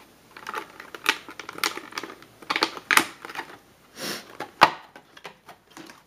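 Stiff plastic blister packaging clicking and crackling in irregular snaps as memory modules are popped out of it, with one sharp snap about three-quarters of the way through.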